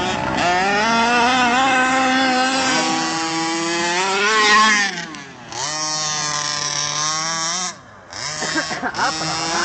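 RC Baja buggy's 30.5 cc two-stroke engine revving hard, its pitch climbing and falling as the throttle is worked. It drops away briefly twice, about five seconds in and again near eight seconds, and a harsh hiss rides over it for stretches in the second half.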